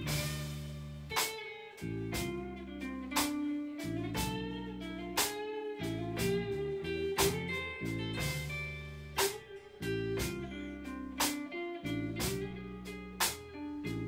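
Live band playing an instrumental passage: guitar melody over bass with a steady beat of drum hits.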